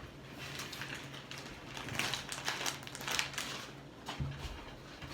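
Faint scattered crinkling and small clicks from eating and handling food, over a low steady hum.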